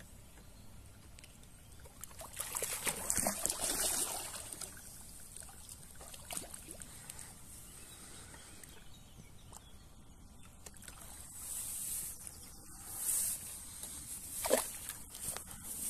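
Water splashing and sloshing as a hooked carp thrashes at the surface beside a landing net, loudest a few seconds in. More splashing and a short sharp splash near the end as the carp is netted and lifted out with water running off the net.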